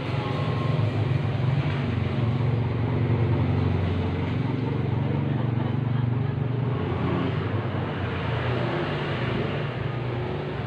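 A motor vehicle's engine running steadily: a low, even hum that shifts slightly in pitch near the end.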